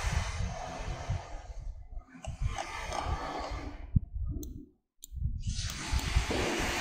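Steady microphone hiss and room noise with soft low thumps, a sharp click about four seconds in, and a brief full dropout just under a second later.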